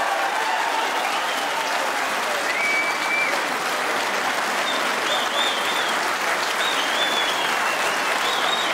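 Large crowd applauding steadily in a sustained ovation, with a few short high-pitched tones, such as whistles, rising above the clapping.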